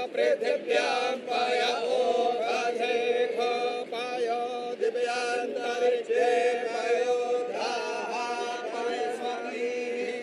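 Sanskrit mantras chanted at a puja, held on long steady pitches with short breaks between phrases.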